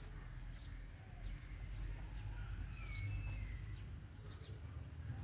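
Birds chirping and calling outdoors: scattered short high calls, one gliding down in pitch about three seconds in, over a steady low rumble.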